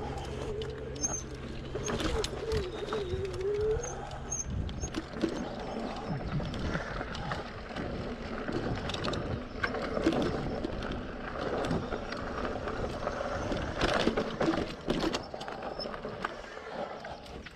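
Fat-tyre electric mountain bike being ridden over a woodland trail: tyres rumbling, with frequent knocks and rattles over bumps. For the first four seconds or so a low hum with a wavering tone runs under it and then stops.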